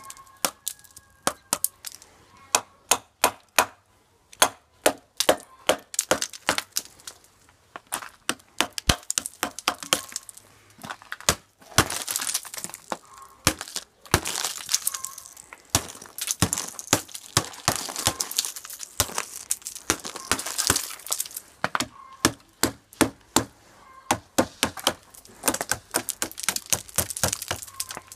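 Metal pliers striking and chipping a thick ice crust off a motorcycle, giving fast, irregular sharp cracks and clinks as pieces of ice break away, with brief pauses.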